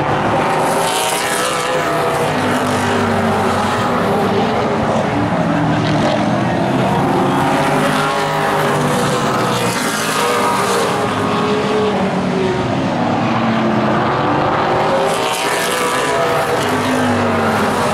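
Several late model stock cars' V8 engines running hard at once during a race, their overlapping pitches rising and falling as the cars pass through the straights and turns.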